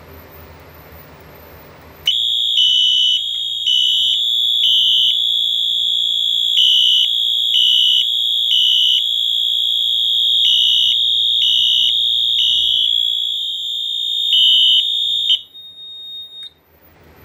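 Fire alarm horns start abruptly about two seconds in, sounding a loud, steady, high continuous horn tone. They go into alarm after a smoke detector is set off with test smoke. The horns cut off suddenly near the end, leaving a faint fading tone for a moment.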